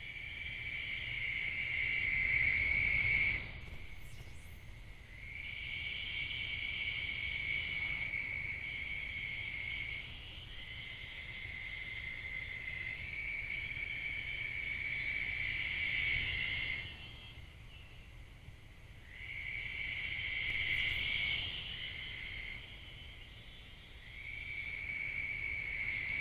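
Night insects trilling: long, steady, high-pitched trills lasting several seconds each with short breaks, two pitches overlapping, over a low steady rumble.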